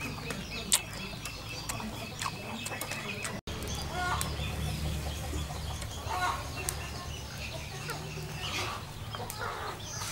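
Chickens clucking and small birds chirping over a low steady hum, with one sharp click a little under a second in.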